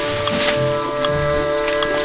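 Background music: held melody notes over a bass line, with light ticking percussion.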